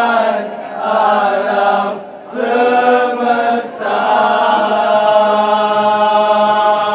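Slow, chant-like singing in long held notes: three short phrases, then one note held for about three and a half seconds.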